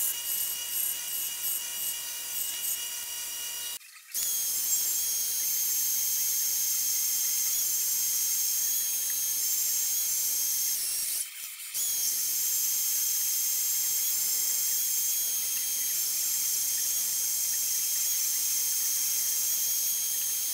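Belt sander grinding a steel part for the first four seconds. Then a metal-cutting band saw runs steadily through steel plate with a high-pitched whine and hiss, stopping briefly about eleven seconds in.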